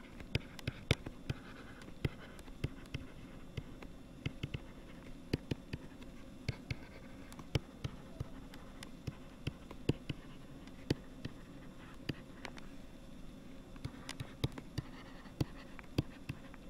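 A stylus tapping and scratching on a tablet's writing surface during handwriting, heard as many small irregular clicks over a faint steady hum.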